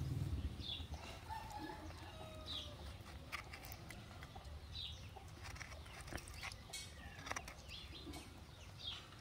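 Faint, repeated short falling chirps of a bird, one every second or two. Mixed with them are a few sharp clicks and scrapes of a metal spoon scooping the flesh from a fresh coconut.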